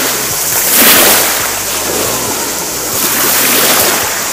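Shallow seawater washing and splashing around a person paddling along the bottom, a steady rushing hiss that surges about a second in.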